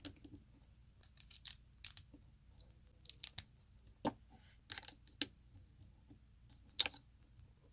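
LEGO bricks clicking and rattling as plastic pieces are handled and pressed together: scattered small sharp clicks and brief rustles, the sharpest about seven seconds in.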